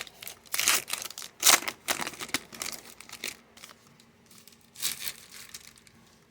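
Wrapper of a Topps trading card pack crinkling and tearing as it is opened by hand, an irregular run of rustles, loudest about one and a half seconds in and dying away after about five seconds.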